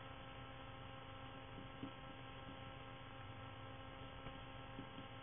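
Faint steady electrical hum, several steady tones over low background hiss, with a faint tick about two seconds in.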